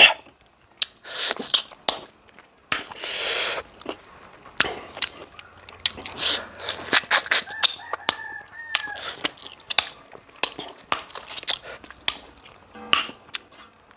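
Close-miked eating: wet chewing, lip smacks, clicks and slurps of pork and bamboo shoot curry throughout. A rooster crows faintly in the background about eight seconds in.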